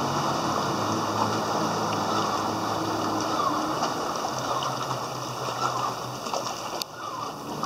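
Sea-Doo jet ski engines running with water rushing and splashing in their wake. The low engine hum drops in pitch about halfway through.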